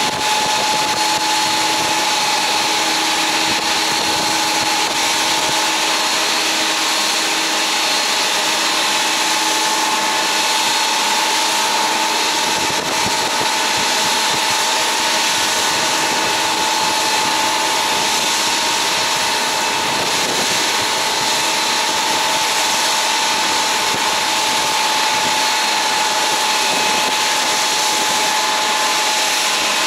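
Jet aircraft engines running steadily: a constant whine over a rushing hiss that neither rises nor falls.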